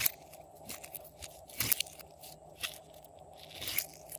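Slime being squeezed and pressed between fingers, making irregular sticky clicks and pops, loudest right at the start, in the middle and near the end.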